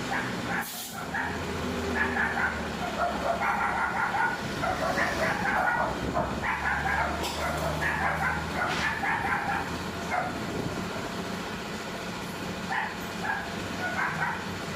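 A dog barking and yipping in irregular short bursts over a steady low hum.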